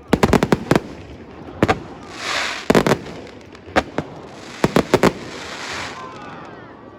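Fireworks exploding in quick volleys of sharp bangs, with hissing crackle between the volleys, thinning out near the end.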